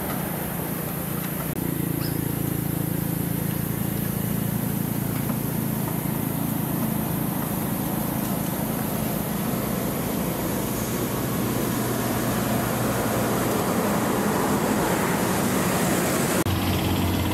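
A steady, low engine hum.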